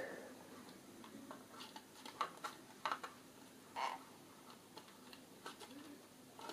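Faint, scattered light clicks and taps, a handful over several seconds, from a hand handling the small plastic-bodied FTX Ibex 1/24 micro crawler on a wooden tabletop.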